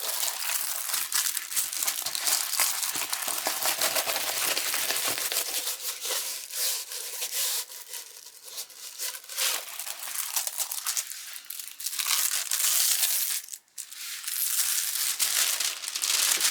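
Plastic crinkling and rustling as a diamond painting kit's packaging and film-covered canvas are handled and unrolled. It is a dense run of small crackles, with a brief break about three-quarters of the way through.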